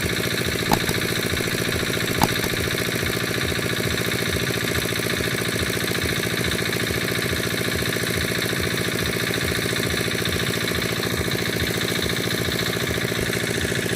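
A small engine running steadily at an even speed, with two short sharp clicks about one and two seconds in.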